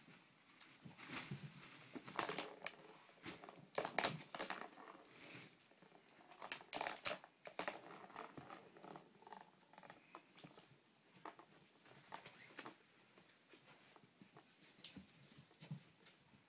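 A kitten playing with a toy: irregular crinkling, rustling and light taps, busiest in the first half and sparser later.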